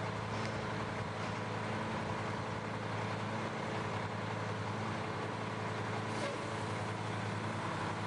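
Garbage truck's engine running with a steady low drone as the truck moves slowly forward, with a few faint ticks over it.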